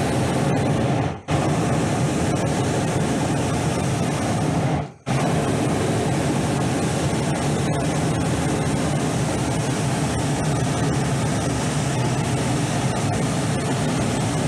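Hot-air balloon's propane burner firing, a loud steady blast heating the air in the envelope, cut off briefly twice: about a second in and about five seconds in.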